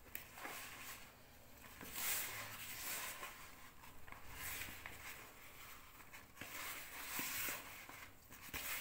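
A hand kneading butter into icing sugar in a plastic bowl: soft, irregular rustling strokes of the powdery mix, with a few light clicks.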